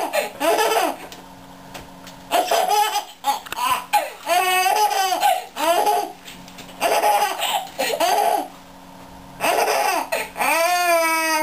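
Baby laughing hard in about five bursts of high-pitched giggles and squeals, with short pauses between.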